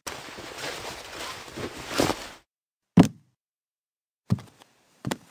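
Cartoon sound effects of a boy getting out of bed: a rustling swish of bedclothes for about two seconds, a single thump about three seconds in as he lands on the floor, then two footsteps near the end.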